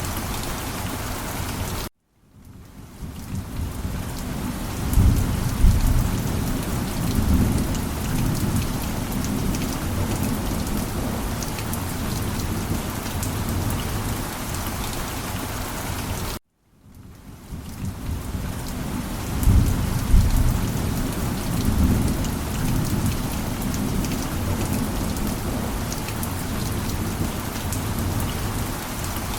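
Heavy rain pattering steadily, with a low rolling thunder rumble twice. Twice the sound cuts out abruptly to silence and fades back in a moment later, about 14 seconds apart.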